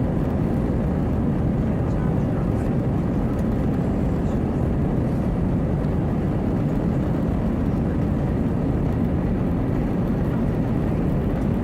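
Steady low cabin roar of an Airbus A320-232 in flight, its IAE V2500 engines at climb power with rushing airflow.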